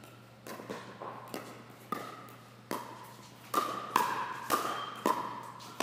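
Pickleball rally: sharp pops of paddles striking the hollow plastic ball, mixed with its bounces on the court, about nine in all. The hits come faster and louder over the last two seconds.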